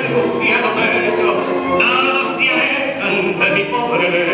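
Recorded Argentine tango music with a vocalist singing.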